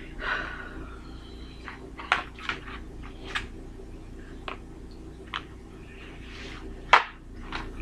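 Scattered short clicks, taps and rustles of handling food and a plastic takeout tray of fries at a table, with eating sounds, over a steady low hum; the loudest is a sharp knock near the end.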